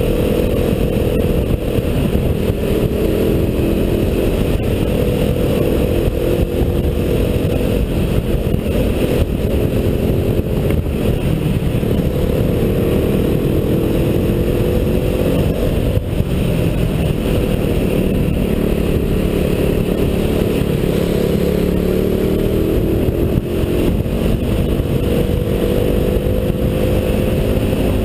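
KTM RC 390's single-cylinder engine running under way, its pitch rising and falling gently with the throttle, over a constant rush of wind noise.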